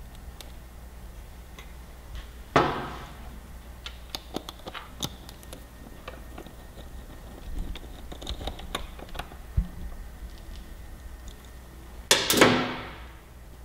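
Hand work on motorcycle throttle-body parts and cables: light clicks and taps, with two louder clattering knocks that ring out briefly, one about two and a half seconds in and a longer one near the end.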